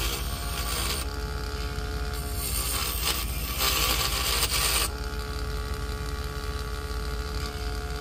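Vevor mini woodworking lathe's small motor running with a steady hum and whine, while a hand chisel scrapes and cuts the spinning wood in loud scratchy bursts, the loudest about three to five seconds in.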